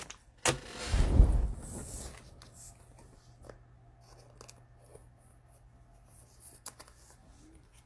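Hands handling trading-card packs and packaging: a sharp click, then a rustling scrape about a second in, followed by a few faint taps and clicks.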